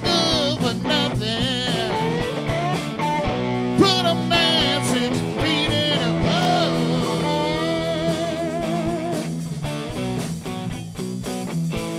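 Live rock band playing: a man singing lead over two electric guitars, bass guitar and drums. The vocal drops out about three-quarters of the way through, leaving the guitars and rhythm section.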